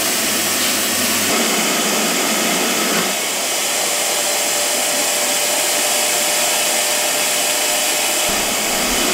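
Shop vacuum running steadily, air rushing through its hose. About three seconds in, a thin whistling tone joins and holds for about five seconds.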